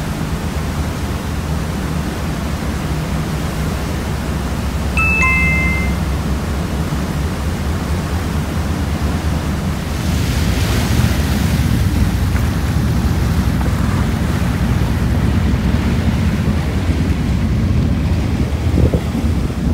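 A ferry's engine running with a steady low hum inside the passenger cabin. About five seconds in comes a short two-note descending chime, and from about halfway a rush of wind and water noise joins in.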